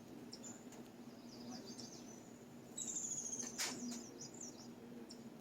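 Small songbirds chirping, with a louder rapid run of high chirps about three seconds in and a sharp click just after, over a steady low hum.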